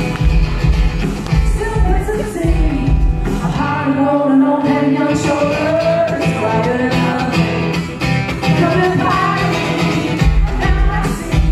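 Live pop-rock song: a woman singing with acoustic guitar over a steady low beat. The low beat drops away about four seconds in and returns strongly near the end.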